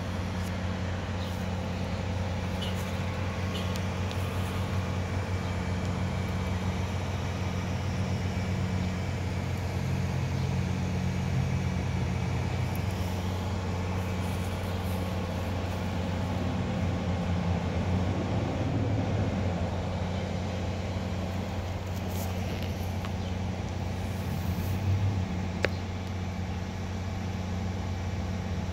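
Motor vehicle engine idling with a steady low drone while traffic is stopped. There is a single sharp click near the end.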